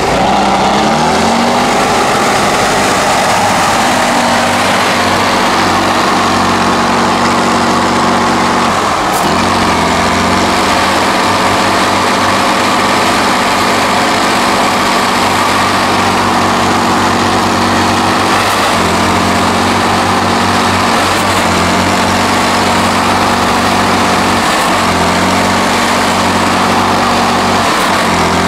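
Tatra 8x8 trial truck's diesel engine running hard under load as the truck strains, stuck nose-down in deep mud. The revs climb in the first second, then hold steady, dropping briefly and picking back up several times.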